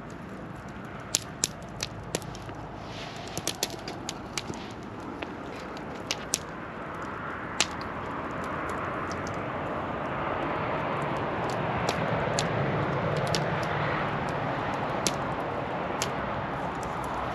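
Wood fire crackling, with sharp irregular pops over a steady rushing noise that swells about halfway through.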